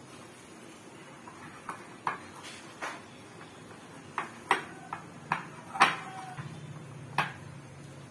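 A glass bowl clinking and knocking as dough is kneaded by hand in it: about nine irregular sharp knocks, some ringing briefly, the loudest about six seconds in.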